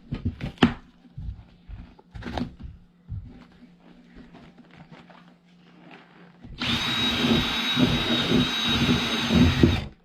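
Power drill running steadily for about three seconds near the end, then stopping abruptly, making an opening in the center console for the CB's antenna cord. Before it come a few handling knocks and clicks.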